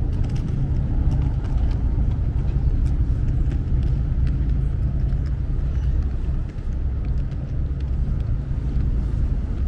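Boat engine running steadily, a low constant rumble, with faint scattered ticks above it.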